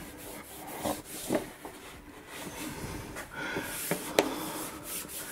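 A cloth wiping and rubbing along a ceiling lamp fitting, with a few light knocks and scrapes against it.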